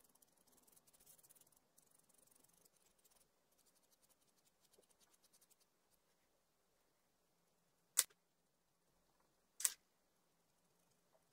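Faint scratching of a sanguine pencil shading on paper in quick strokes, stopping about halfway through. Later come two sharp clicks about a second and a half apart.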